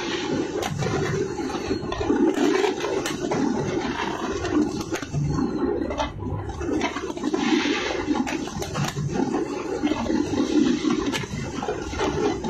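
Fireworks display: a dense, continuous rumble of bursting shells, broken by many sharp cracks.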